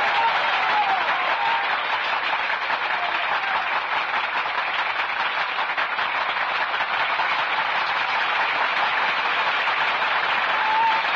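A large crowd applauding steadily, with a brief wavering call rising over the clapping at the start and again near the end.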